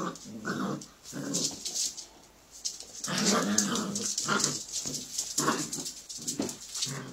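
Puppies play-growling and whining while wrestling, in short irregular bouts with a brief lull about two seconds in.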